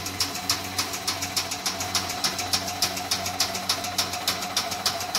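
Snack pellet extruder production line running: a steady machine hum with a rapid, even ticking of about five clicks a second.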